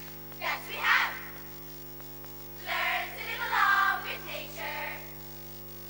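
A choral speaking group of girls' voices chanting phrases in unison, in a few short bursts with pauses between, over a steady electrical mains hum.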